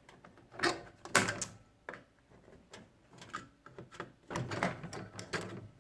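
Plastic clicks and knocks from the casing of a Panasonic microwave door being pried off and handled: a few separate sharp clicks, the loudest about a second in, then busier rattling and rubbing near the end.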